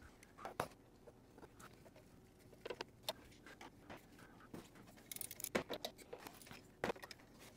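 Socket ratchet on an extension working a bolt on the plastic thermostat housing: scattered metal clinks and knocks, with a quick run of ratchet clicks a little past the middle.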